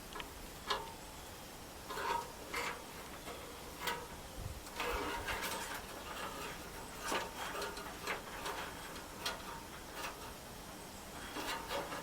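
Hand work on small parts: scattered light clicks, taps and rubbing at irregular intervals, a few with a brief ringing.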